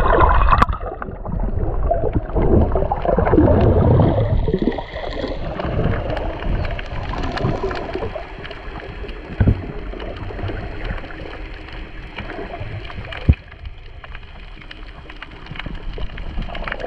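Muffled underwater water noise picked up by a submerged camera: water rushing and gurgling around the housing, with a sharp knock about halfway through and a louder one about three-quarters of the way in.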